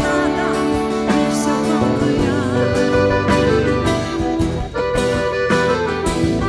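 Live band music: acoustic guitar and accordion playing, with a woman singing.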